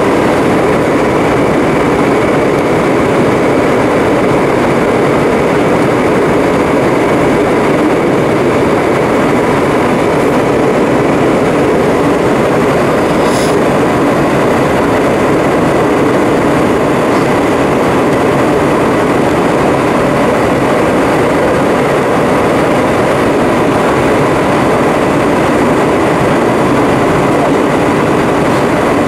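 Steady cabin noise of an Airbus A320 in flight, heard from a window seat beside the wing: its IAE V2500 turbofan engine and the rush of airflow, with a steady high whine over the top.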